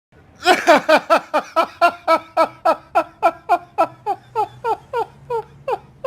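The Joker's maniacal laugh: a long run of staccato "ha" syllables, about four a second, each dropping in pitch. It starts about half a second in and gradually fades toward the end.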